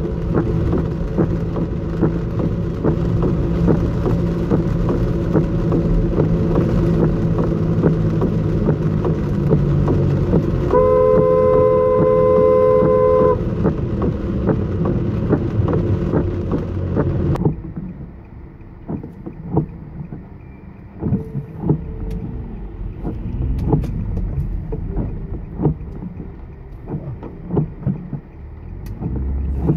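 Car interior noise while driving on a wet road, with a car horn held for about two and a half seconds about eleven seconds in. About seventeen seconds in the sound cuts to quieter cabin noise with scattered light ticks.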